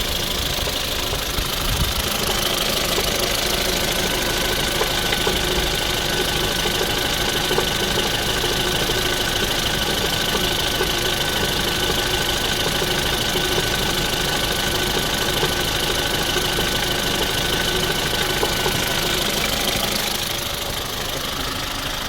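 Ford Fusion car engine running steadily with extraneous noises from the engine, heard as a dense fast ticking over the engine's running sound; it drops slightly in loudness near the end.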